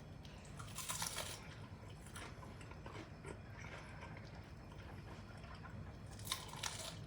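Crunching bites into crispy fried chicken, with chewing between them. The loudest crunches come about a second in and again near the end.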